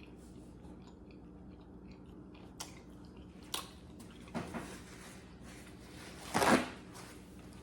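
A person eating close to the microphone: quiet chewing with a few soft mouth clicks, and one louder wet smack about six seconds in.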